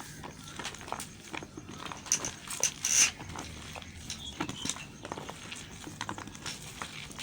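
A knife cutting and scraping a bar of soap: irregular crisp scrapes and taps, with louder rasping cuts about two to three seconds in.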